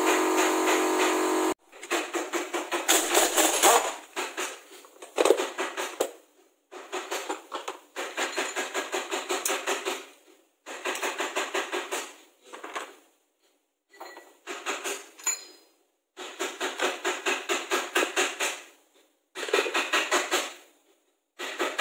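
A rag rubbed briskly back and forth over the motorcycle engine's crankcase, in quick scrubbing strokes that come in runs of a few seconds with short pauses between.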